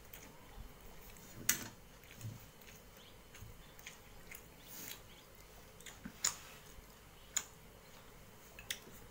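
A person eating rice and fish curry by hand from a metal plate: soft mixing and chewing sounds with about four sharp clicks spread through.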